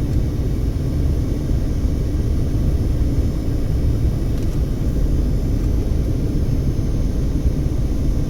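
Steady low road rumble of a car being driven, heard from inside the car.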